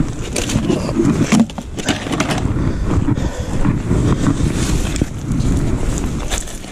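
Wind buffeting the microphone, a loud uneven rumble, with scattered clicks and knocks over it.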